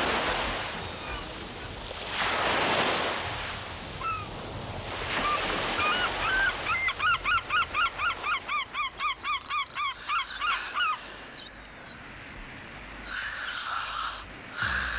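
Honking bird calls: a few scattered calls, then a quick run of repeated honks, about three or four a second, for several seconds in the middle. Swells of hiss come near the start.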